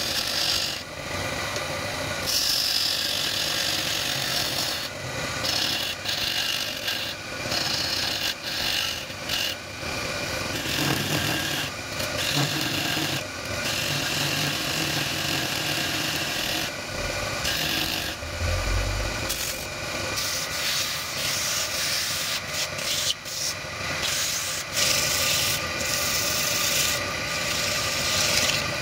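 Hand-held turning chisel cutting a small piece of spinning wood on a lathe: a scraping cut that goes on in strokes broken by many brief pauses as the tool lifts off. A brief low thump about two-thirds of the way through, and near the end sandpaper rubbing on the spinning wood.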